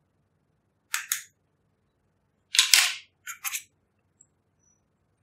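Plastic spatula scraping pressed eyeshadow out of a compact pan in short, scratchy strokes. There are two quick scrapes about a second in, then a louder, longer scrape and two more short ones around the middle.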